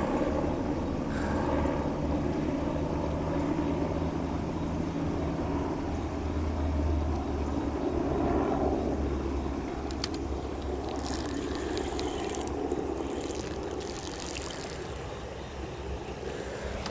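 A distant engine's steady low drone, strongest about seven seconds in and fading toward the end, with a few light clicks partway through.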